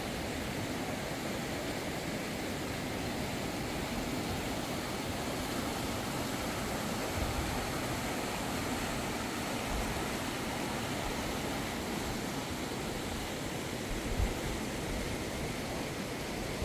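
Steady rushing of a fast river's white-water rapids, with two brief low thumps, about seven and fourteen seconds in.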